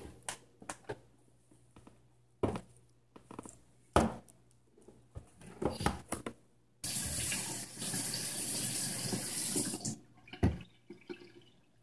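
Plastic parts of a disassembled Nespresso Vertuo Next coffee machine clicking and knocking as they are handled, then a steady rush of running water for about three seconds that starts and stops abruptly, followed by a few more knocks.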